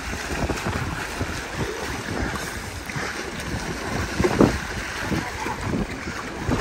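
Sea water rushing and churning past the stern of a moving sailing yacht as swimmers are towed through the wake on a line, with wind buffeting the microphone. The water noise swells briefly louder about four and a half seconds in.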